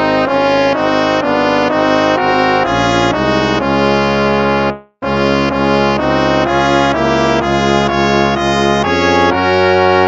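Instrumental background music: a melody of short notes over held low notes, cutting out briefly about halfway through before starting again.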